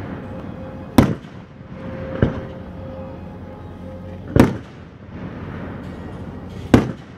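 Aerial fireworks shells going off: four sharp bangs one to two and a half seconds apart, the second one weaker, each trailing off briefly.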